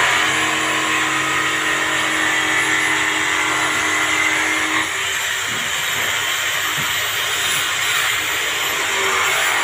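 A machine running steadily and loudly: a hissing roar with a low hum and a faint high whine. The hum drops away about five seconds in.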